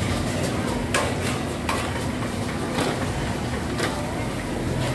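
Chicken deep-frying in large woks of oil with a steady sizzle, and metal tongs clinking sharply against the woks several times.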